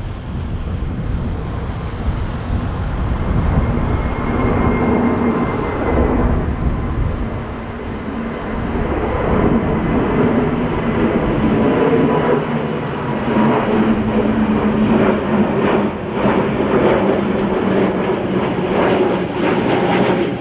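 Airbus A320neo's Pratt & Whitney PW1100G geared turbofans at climb power as the airliner passes overhead just after takeoff and climbs away: loud, steady jet noise with a low drone and a thin whine. From about halfway through the sound grows duller as the aircraft moves off.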